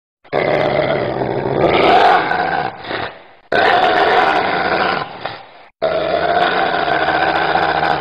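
A dog growling: three long, drawn-out growls, each lasting two to three seconds, separated by brief pauses.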